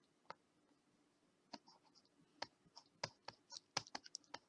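Faint computer mouse button clicks as handwriting strokes are drawn with the mouse: a few isolated clicks, then a quicker irregular run in the last second and a half.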